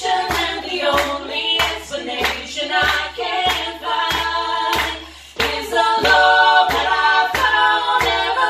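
Live band music: hand-clapping and djembe beats about twice a second, over keyboard and women's voices singing. The music dips briefly about five seconds in.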